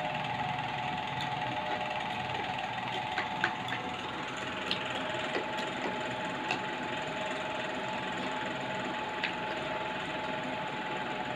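Scattered light clicks and taps of a plastic toy spoon stirring toy food in a small plastic toy pot, over a steady hum.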